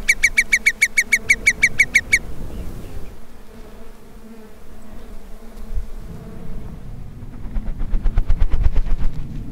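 Hudsonian whimbrel calling: a rapid rippling series of clear, even notes, about eight a second, that stops a little over two seconds in. Near the end a fainter rapid pulsing comes in.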